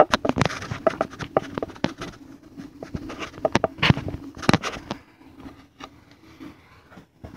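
Handling noise from the phone camera being held and set in place: a quick run of knocks, taps and rubbing clicks on the microphone, thinning to a few faint knocks about five seconds in.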